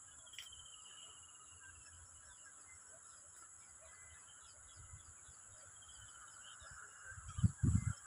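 Faint outdoor ambience with a steady high-pitched hum and faint short bird chirps, then loud low rumbles on the microphone about seven seconds in.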